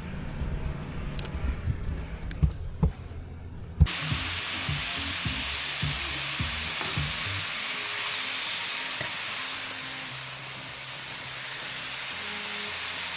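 Food sizzling steadily in a frying pan, starting abruptly about four seconds in after a few seconds of low rumbling and knocks.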